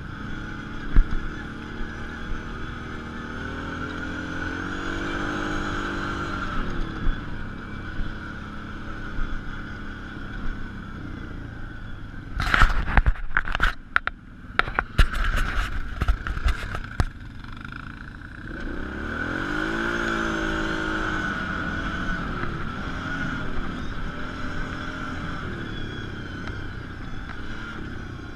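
Quad ATV engine running under way, its pitch rising and falling as it speeds up and slows down twice, with a cluster of sharp knocks and rattles about halfway through.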